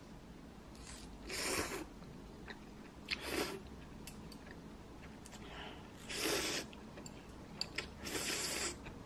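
A person slurping noodles from a small bowl, about five noisy slurps a second or two apart, with small chewing clicks between them.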